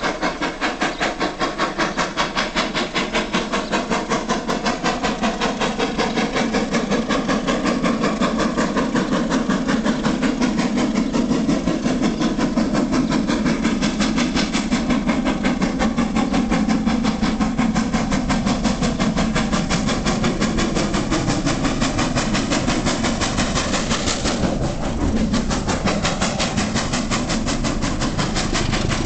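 Great Western steam locomotive working under steam, its exhaust beating in a fast, even rhythm of about four beats a second, double-headed with a diesel locomotive whose engine drone grows louder as the train approaches.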